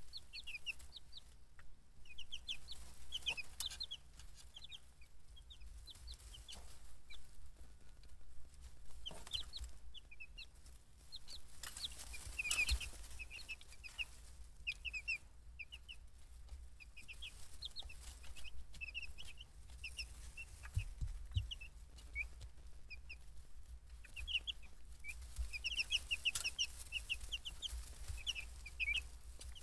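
A brood of young chicks peeping: many short, high chirps in quick runs, coming and going throughout.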